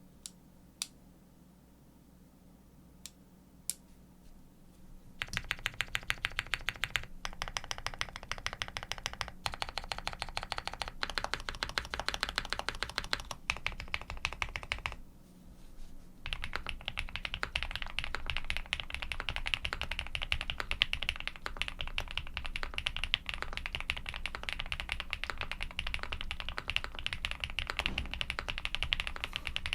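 Typing on a Mr. Suit custom mechanical keyboard with Durock Cobalt POM switches, GMK keycaps and a polycarbonate plate. A few single key clacks come first, then fast, steady typing from about five seconds in, with a short pause around the middle.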